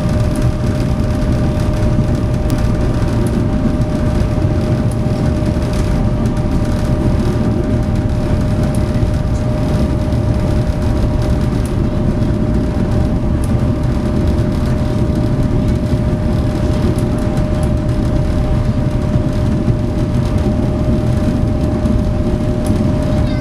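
SeaBus passenger ferry under way, its engines running steadily: a constant low rumble with a steady hum tone riding above it.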